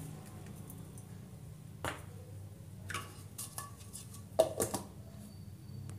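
A few light clicks and knocks of things being handled on a kitchen counter, the loudest a sharp knock a little past four seconds in, over a steady low hum.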